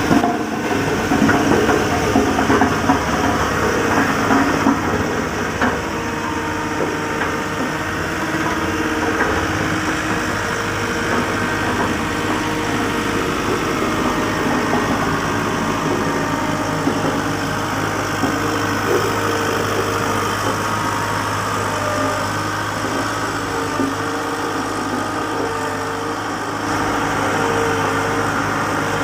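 Volvo vibratory road roller's diesel engine running steadily, a continuous mechanical drone with a low hum.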